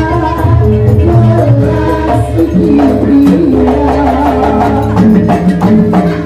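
Live Javanese jaranan music: loud percussion with repeated sharp strokes under a sustained, wavering melody line.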